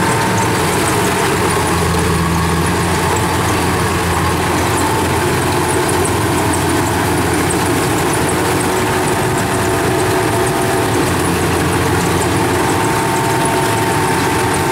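Kubota combine harvester's diesel engine running steadily as the tracked machine crawls through deep mud, a constant drone with no breaks or changes in speed.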